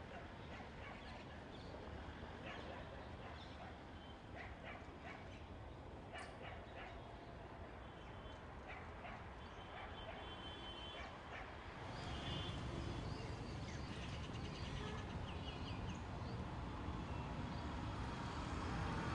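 Outdoor ambience with many short, high chirping calls and clicks, joined by a low rumble that steps up about twelve seconds in.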